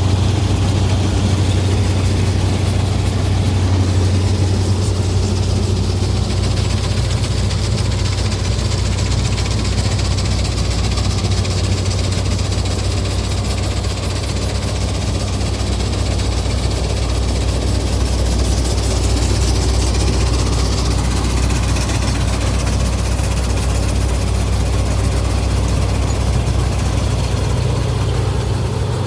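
Combine harvester's diesel engine and machinery running steadily, a deep even hum with a rushing mechanical noise over it.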